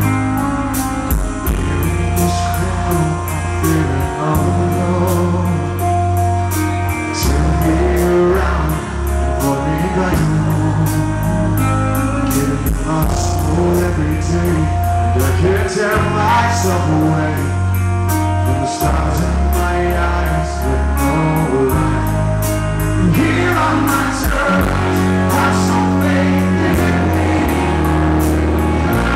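Live rock band playing: a male lead vocal sings over electric guitars, a bass line that changes note every couple of seconds, and drums with a steady cymbal beat.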